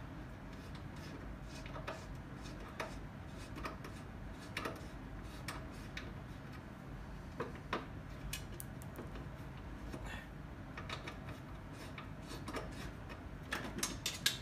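Scattered small metallic clicks and ticks as fasteners on a commercial burner's metal housing are worked loose by hand, over a steady low hum.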